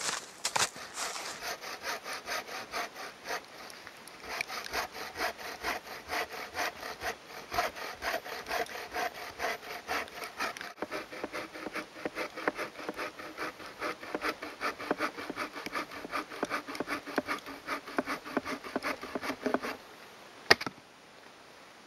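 Sawvivor aluminium bow saw cutting a snow-covered deadwood log with quick, even back-and-forth strokes, about four a second, which stop near the end. A single sharp knock follows shortly after.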